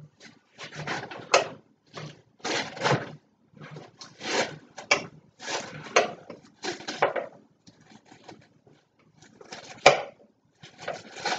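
Wooden utensil pushing and packing spinach leaves down into a blender jar: repeated rustling, scraping strokes, roughly one or two a second, fewer near the end.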